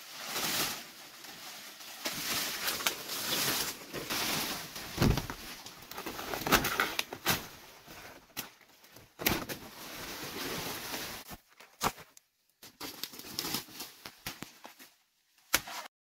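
Dry banana leaves and stalks rustling and crackling as they are pushed aside and handled, with several sharp cracks among them.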